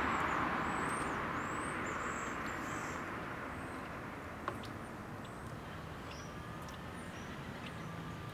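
Outdoor ambience: a steady hiss of distant traffic that slowly fades, with small birds chirping now and then and a single sharp click about halfway through.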